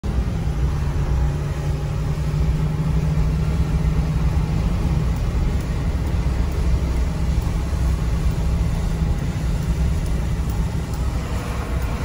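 Steady road noise inside a moving pickup's cabin: engine drone and tyre noise on a wet road. A low hum holds steady for the first five seconds or so, then fades into the rumble.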